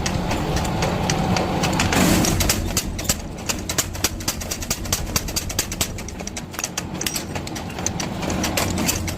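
Mechanical power hammer in a blacksmith's forge running over a steady motor hum, with a stream of sharp metal knocks, several a second. A louder rushing swell comes about two seconds in.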